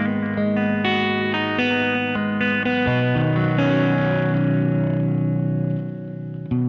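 Fender '52 Telecaster played through a Fuzz Face fuzz pedal and an MXR Carbon Copy analog delay into a 1966 Fender Vibrolux Reverb amp. It plays a quick run of fuzzy, distorted notes, then holds notes that ring out and fade slightly. A new note is struck near the end.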